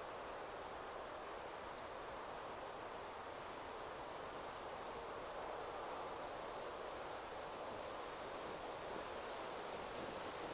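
Wind rustling steadily through forest trees, with faint, high, short bird chirps scattered throughout and one louder chirp about nine seconds in.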